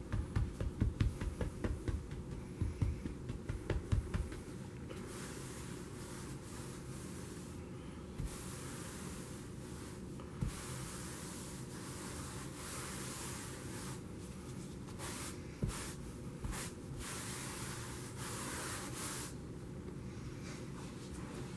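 Stiff scrub brush on carpet: a quick run of thumps as it taps the powder pile for the first few seconds, then long scratchy strokes scrubbing back and forth through the carpet pile, working the test dirt in.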